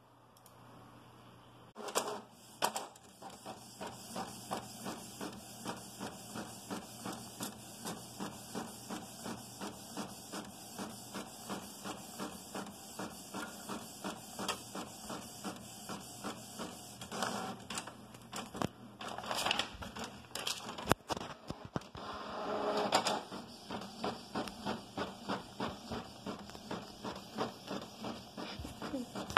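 Canon MX920-series inkjet printer printing a page: a couple of sharp clicks as it starts, then the print head shuttling back and forth in an even rhythm of about two passes a second, with a louder stretch of feed and mechanism noise about two-thirds of the way through.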